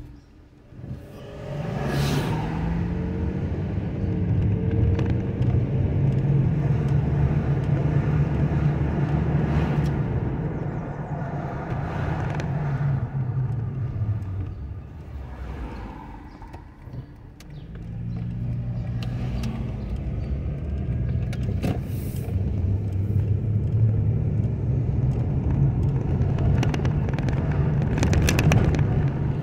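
Car engine and road noise heard from inside the cabin. It pulls away from a stop about a second in, eases off to near idle around the middle, then accelerates again.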